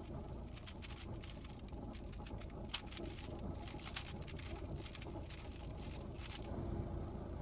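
Rubik's cube being turned by hand: quick, irregular plastic clicks and rattles of the layers rotating, with two sharper clicks about three and four seconds in.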